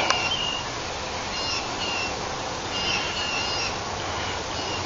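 Steady outdoor background hiss with faint, short bird chirps every second or so.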